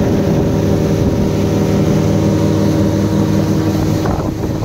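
Speedboat's outboard motor running at a steady cruising speed, a constant engine drone whose pitch holds steady, over the rush of water and air.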